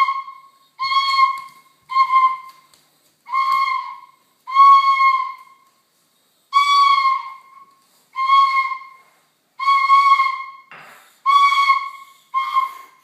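Bamboo flute blown by a small child, sounding the same single high note over and over in about ten short toots, each under a second, with brief gaps between.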